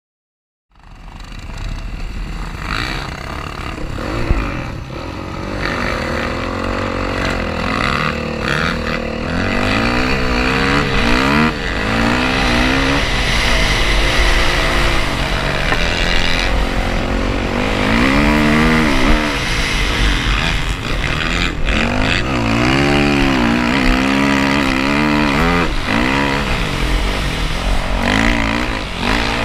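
Dirt bike engine running hard, its pitch rising and falling again and again as the throttle opens and closes, heard from on the bike itself. It cuts in suddenly about a second in.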